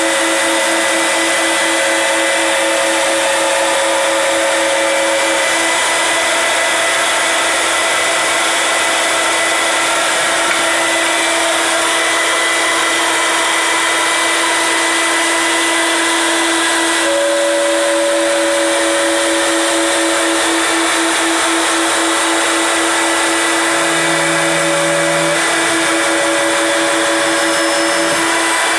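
5-axis CNC stair machine's cutters running through three stacked 2x10 boards, a loud steady machining noise with a constant whine. A higher tone drops out about six seconds in and comes back about seventeen seconds in as the cut goes on.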